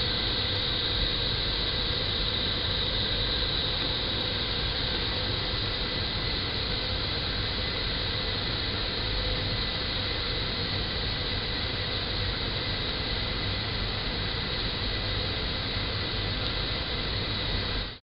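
Steady electronic hiss and drone from a sound-art installation, with a low hum underneath. It does not change, then cuts off abruptly at the very end.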